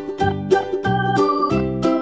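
Background music: sustained pitched notes over a steady, even beat.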